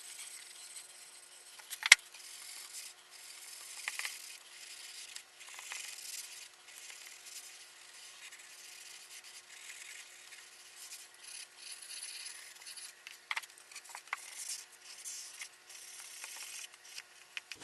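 A cloth rubbing a waxy oil finish into a wooden picture frame, in soft, irregular swishing strokes along the grain, with one sharp click about two seconds in.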